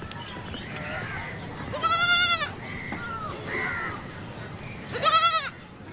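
Goat bleating twice, each bleat about half a second long with a quavering pitch, the first about two seconds in and the second near the end.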